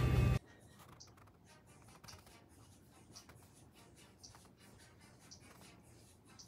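A loud passage cuts off abruptly, leaving near silence with a faint, short tick about once a second.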